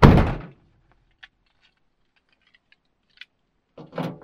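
A van's side door pushed shut with a heavy thump, followed by a couple of faint clicks as the van is being locked.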